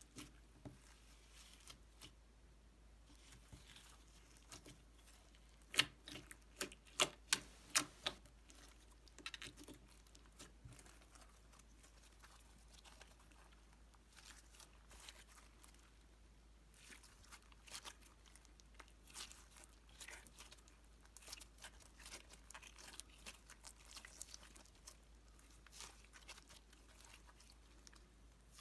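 White slime with polystyrene beads mixed in, being squeezed and kneaded by hand: faint crackling and popping, with a quick run of about six sharp pops some six seconds in, and denser small crackles in the second half.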